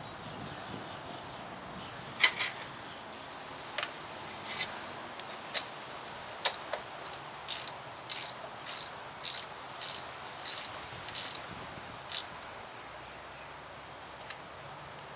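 Hand socket ratchet clicking as a nut is turned down on the battery's positive terminal: a few scattered clicks, then a run of about nine evenly spaced strokes in the middle, and one last click a little after.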